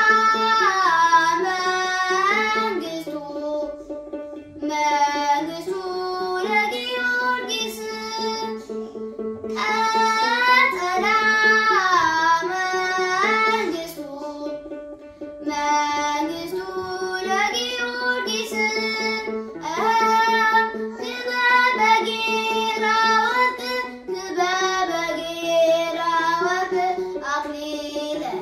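A boy singing an Ethiopian Orthodox mezmur (hymn) over a stringed-instrument accompaniment. The song moves in repeated sung phrases a few seconds long, with short breaks between them.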